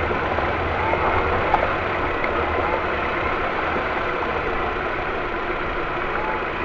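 Ford Focus II car running, with a steady engine and road noise and a single sharp knock about a second and a half in: the kind of suspension knock the owner suspects comes from a worn steering rack.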